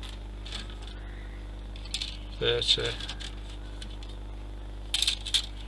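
Small plastic model-kit parts being handled, giving light clicks and a brief rattle. There is a scatter of clicks about five seconds in, a short murmur of a voice about halfway through, and a steady low hum throughout.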